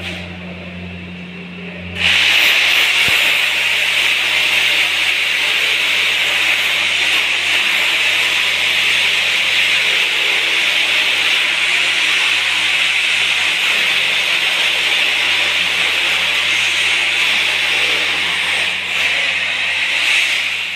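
Corded electric drill boring into the concrete floor at the base of a wall. It starts about two seconds in and runs steadily with a high grinding whine, easing briefly near the end.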